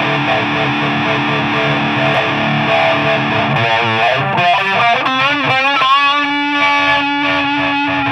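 Distorted electric guitar played through a Cry Baby wah pedal. The pedal is rocked so the tone sweeps up and down over sustained chords and notes, the sweeping most marked in the second half.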